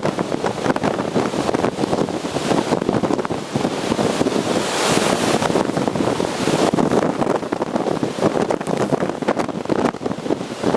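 Gale-force wind buffeting the microphone over large storm waves breaking on a lakeshore, with a brighter rush of hiss about halfway through.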